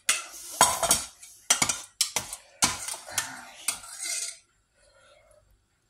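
Metal spoon clinking and scraping inside a metal pot while scooping up béchamel sauce: a quick run of sharp clinks and scrapes that stops a little over four seconds in.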